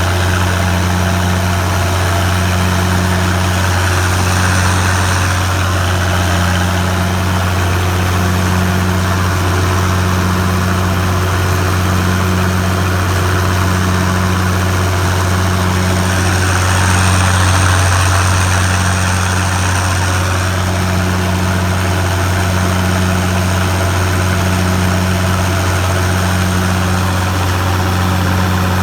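Harvest machinery engine running steadily under load, with a deep constant hum and a second droning tone that swells and fades about once a second.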